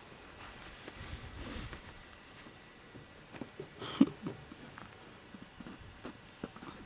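Handling noise: light rustling and scattered small taps as a soft toy train and the camera are moved about in the hand, with one sharper knock about four seconds in.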